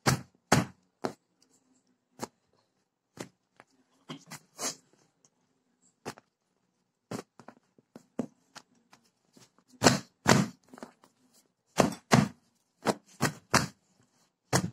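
Hands slapping and pressing a stack of freshly cooked parottas to loosen their flaky layers: a series of dull slaps at irregular intervals, some in quick pairs.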